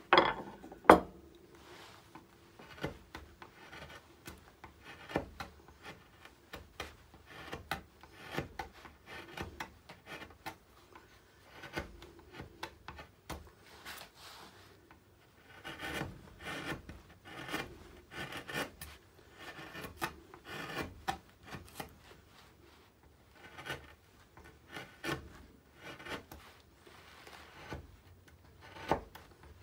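Hand carving gouge paring alder wood: a sharp mallet knock about a second in, then many short, irregular scraping cuts as the gouge is pushed by hand.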